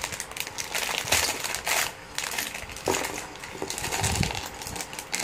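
Clear plastic bag crinkling and small plastic Lego pieces clicking and rattling as they are shaken out onto a table, in many quick clicks.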